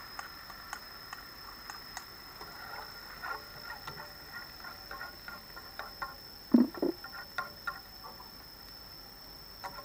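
Fish-sauce mixture simmering in a frying pan, bubbling and crackling with many small pops as it cooks down toward a thick glaze. Two louder knocks come about six and a half seconds in.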